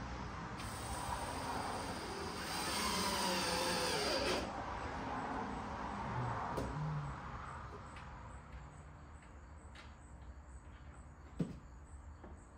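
A power drill driving a screw into the subwoofer box in one run of about four seconds, its motor whine shifting in pitch, over a steady background hum; near the end come a few light knocks.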